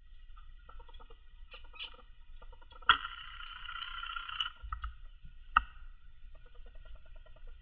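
A zebra finch picking through grass stems and shredded paper nesting material on a glass tabletop makes light scratchy ticks. About three seconds in there is a sharp click, followed by a second and a half of rustling, and another sharp click comes a little past the middle.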